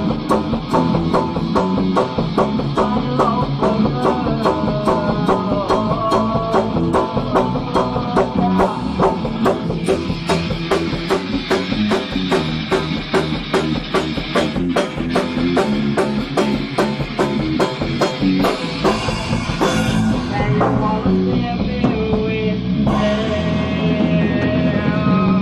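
A band playing live: guitar, bass and drum kit on an instrumental rock passage over a steady beat, with the drumming thinning out for a few seconds about two-thirds of the way through.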